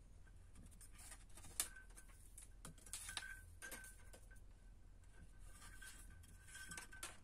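Faint handling noises: a few light clicks and taps as insulated wires are pulled and moved around a microwave-oven transformer coil in a steel box, over a low steady hum.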